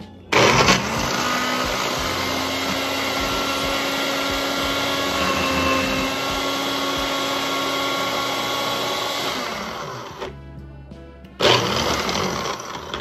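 Nutribullet blender motor switching on about half a second in, running steadily at one pitch for about nine seconds and then winding down, followed by a second short pulse of about a second near the end. The cup holds kale, berries and Greek yogurt with no liquid added yet.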